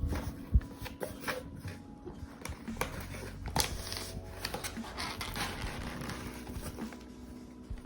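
Handling of a MacBook Air's box and packaging: scattered taps and clicks with some crinkling and rustling.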